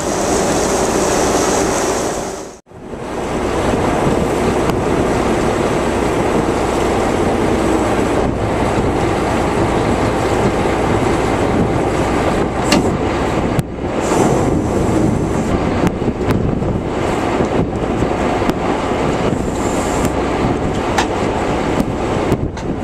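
Boat's hydraulic winch and engine running steadily, a loud rumble with a low hum, as the piston core is hauled back aboard; a few sharp knocks sound about halfway through, and the sound breaks off briefly about two and a half seconds in.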